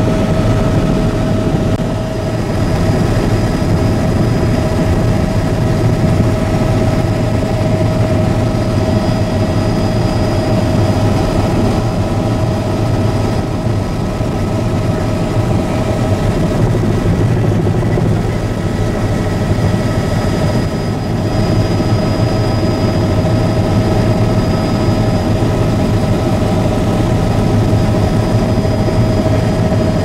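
Steady drone of an aircraft engine heard from inside the cabin: a constant whine over a low rumble, unchanging throughout.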